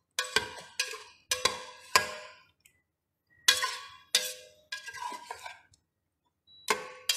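A cooking utensil knocking and scraping against the inside of a stainless steel Song-Cho Magic Quick Cook pressure cooker pot as pork ribs are stirred in their sauce: a run of sharp, ringing metallic clinks in quick groups, with a pause of about a second midway.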